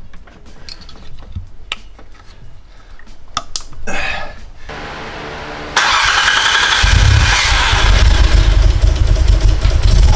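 Nissan RB26 twin-turbo straight-six being started for the first time on a newly installed Haltech Elite ECU. After a few scattered clicks and knocks there is a short whirr, then the engine cranks and fires about six seconds in and keeps running loudly.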